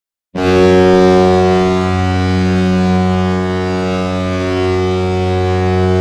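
San Jose Sharks arena goal horn sounding one long, steady, deep blast that starts a moment in.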